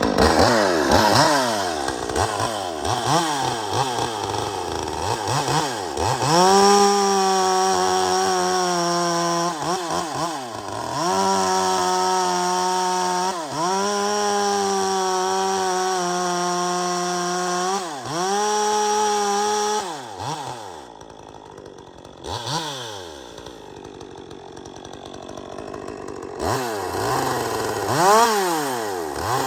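A repaired two-stroke top-handle chainsaw, the 201, is revved in quick blips and then held at full throttle in four long stretches while making cuts in wood. About 20 seconds in it drops to a low idle, then revs up again near the end. This is a test run after an oil-line repair, and the chain is now getting oil.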